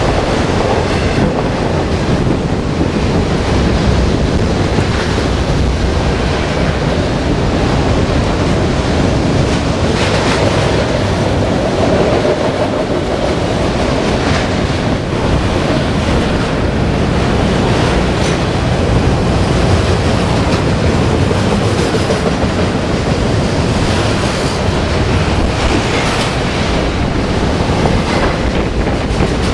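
Loaded autorack freight cars rolling past: a steady, loud rumble of steel wheels on rail, with the clack of wheels passing over rail joints now and then.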